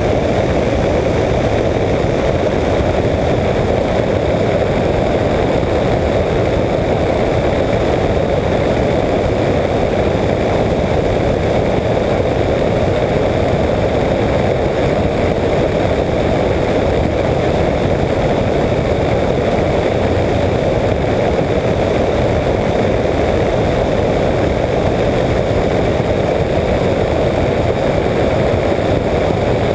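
Apollo Jet Star microlight trike in cruising flight: the engine and propeller drone steadily without change, mixed with wind noise on the outside-mounted camera.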